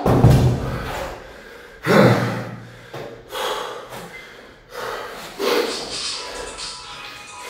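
Two 24 kg kettlebells set down on a hard floor with a heavy thud, followed by a string of loud, gasping breaths about a second or so apart from a lifter winded at the end of a kettlebell set.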